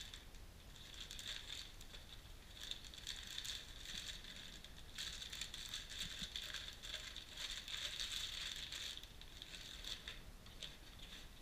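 Clear plastic packaging bags crinkling and rustling as they are handled, in an irregular run of crackles that is busiest in the middle.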